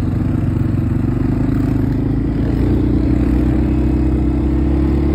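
A four-wheeler (ATV) engine running under way, heard from the seat of the moving machine. Its pitch climbs a little as it speeds up about two seconds in, then holds steady.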